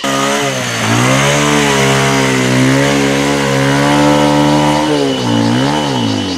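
Motorbike engine running loud and close, held at a steady pitch that dips briefly about a second in, then drops and rises again near the end as the throttle is eased off and opened.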